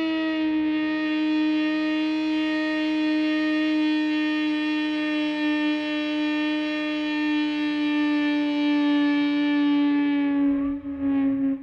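Synthesizer playing one long held note rich in overtones, sinking slightly in pitch over about ten seconds, then breaking into short repeated pulses near the end.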